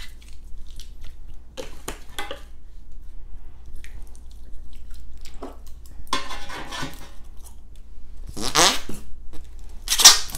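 Soft squelches of noisy fart putty kneaded in the hands, then handling of its small plastic tub. Two louder, rough sounds come about six and eight and a half seconds in, and a sharp loud one near the end as the orange lid is worked off.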